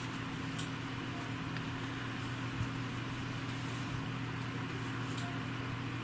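Steady low electrical hum with a light hiss, with a few faint ticks.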